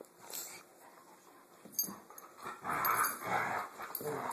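Dogs fighting, their vocal noises low at first and becoming loud and continuous about two and a half seconds in.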